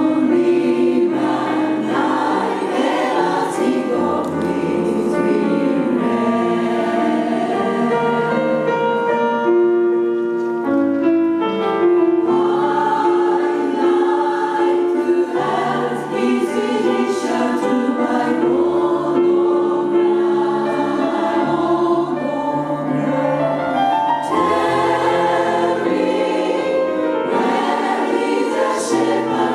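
Jazz chorus singing in close harmony, with a small jazz band (piano, bass, drums) accompanying. The voices hold long chords that move together, over a shifting bass line.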